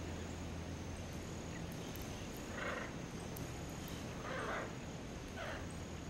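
Hyacinth macaw working at a hard palm nut with its bill: three faint, short scraping crunches, over a low steady hum.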